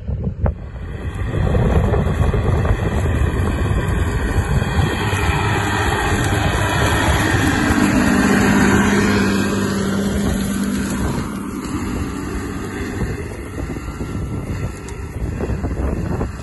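Case IH Magnum 340 tractor's diesel engine working hard under load as it pulls a Pöttinger Terradisc 6001T short disc harrow through sunflower stubble. The sound grows louder as the tractor passes close about halfway through, then fades as it pulls away. Wind buffets the microphone throughout.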